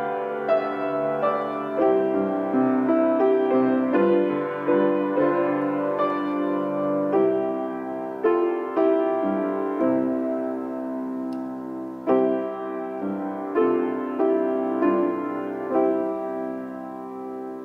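Solo grand piano playing a slow piece in chords, each chord struck and left to ring, growing quieter toward the end.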